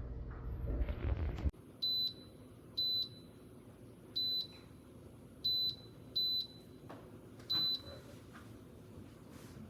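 A muffled rumbling noise that cuts off about a second and a half in, then six short high-pitched beeps at uneven intervals from the WUNLY 4-slice toaster's touchscreen control panel.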